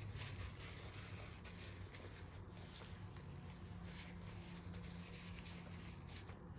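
Faint rustling and light handling noises over a low, steady hum.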